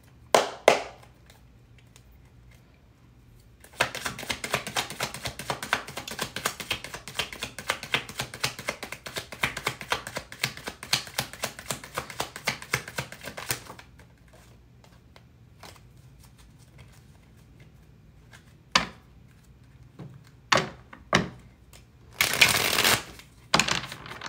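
A deck of tarot cards being shuffled by hand: a dense run of rapid flicking clicks lasting about ten seconds. Near the end come a few separate knocks and a short rustle as the deck is squared up.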